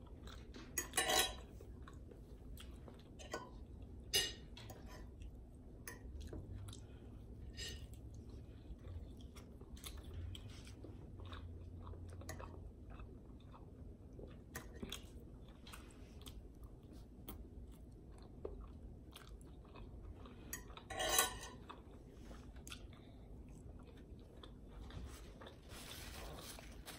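Close-up chewing and mouth sounds of someone eating breakfast food, with scattered small clicks of a metal fork on a ceramic plate. A few louder clicks come about a second in, about four seconds in, and again near the three-quarter mark.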